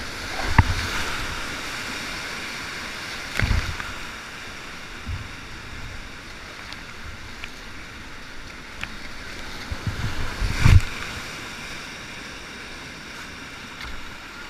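Whitewater rapids rushing steadily around a kayak running them, with water splashing over the camera microphone. Three heavy thumps break through, one just after the start, one a few seconds in and the loudest about eleven seconds in.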